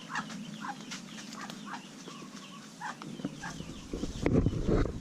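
Ducklings peeping in short, repeated high calls, a few a second. Near the end, louder low rustling and thumps come in close to the microphone.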